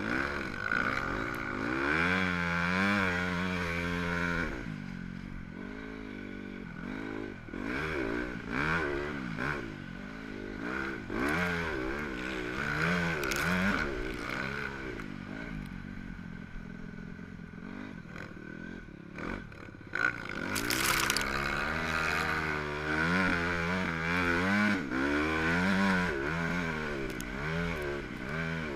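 Dirt bike engine revving up and down, its pitch rising and falling over and over as the throttle opens and closes, with two quieter stretches off the throttle. A brief sharp knock about twenty seconds in.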